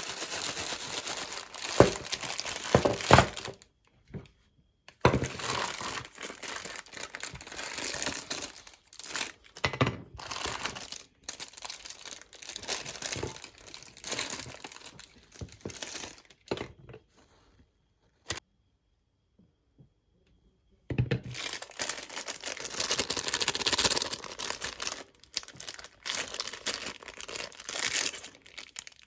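Crinkling and tearing handling noise, like packaging being crumpled and ripped open, in uneven bursts with a few sharp cracks. It stops dead twice, once for about four seconds.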